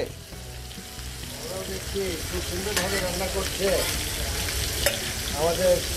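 Food frying in a pan of hot oil, a steady sizzle, with two sharp clicks and faint voices in the background.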